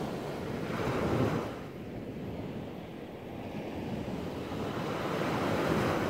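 Small waves breaking and washing up onto a sandy beach, the surf swelling about a second in and again near the end.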